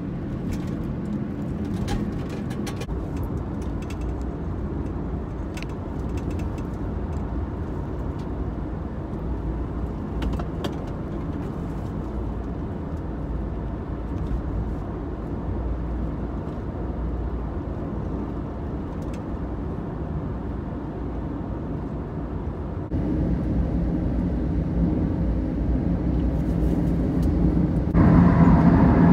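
Road and engine noise of a moving car heard from inside the cabin: a steady low rumble with a few faint clicks. It gets louder about three quarters of the way through, and louder again near the end as the car enters a road tunnel.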